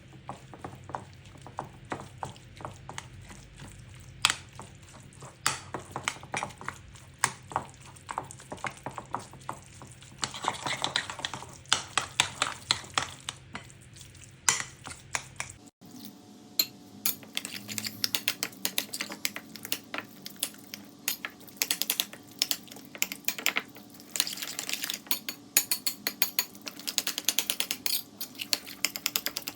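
Kitchen utensils clicking and clinking against dishes in quick, irregular taps, with the background changing abruptly about halfway through.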